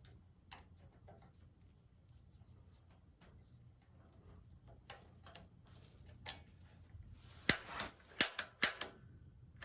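Igniter button on an AO Smith GCG-50 water heater's gas control valve being pressed, with faint handling clicks at first and then four sharp clicks from about seven and a half seconds in. The igniter is not sparking to light the pilot.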